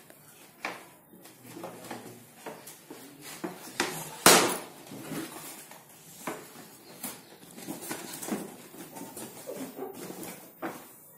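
A cardboard toy box with a plastic window being handled and opened: scattered rustles, scrapes and light knocks of cardboard and plastic, with one loud tear about four seconds in as the end flap is pulled open.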